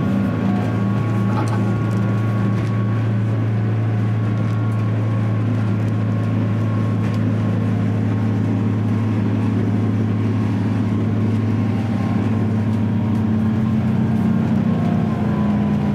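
Volvo Penta D6 six-cylinder diesel stern drive engine running steadily under way, heard from the helm inside the boat's wheelhouse as an even low drone.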